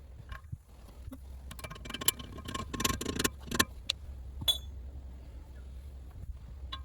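Metal tools and parts clicking and clattering, busiest in the middle, with one sharper clink that rings briefly, over a steady low hum.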